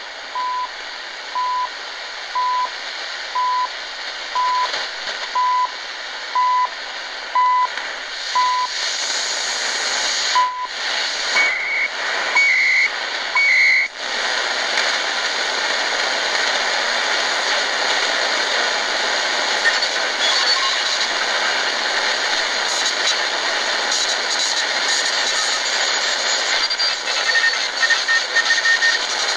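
Tecsun GR-138 portable radio's speaker giving shortwave static as it is fine-tuned. A steady hiss carries short beeps about a second apart for the first nine seconds, then three longer, higher tones. After a brief dropout the hiss runs on alone, with a few faint pips near the end.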